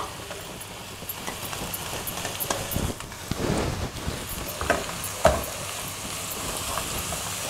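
Chopped spinach going into a pan of onions frying in butter and ghee and being stirred with a wooden spatula: a light sizzle under scattered knocks of the spatula against the pan, the loudest just after five seconds in.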